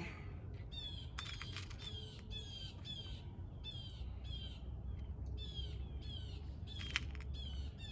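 A bird calling over and over, short falling notes at about two a second. A few sharp clicks come about a second in and again near the end.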